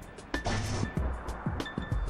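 Tense documentary score: a held high tone under a run of sharp percussive hits and short low thuds.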